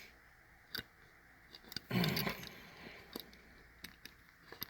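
Light clicks and taps from a small diecast model car being handled, with a brief rustle about two seconds in.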